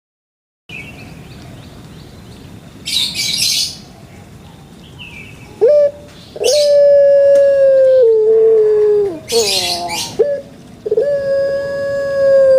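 A dove cooing: long, held, low coos that each drop a step in pitch at the end, starting about halfway through. Short hissing bursts come in three times.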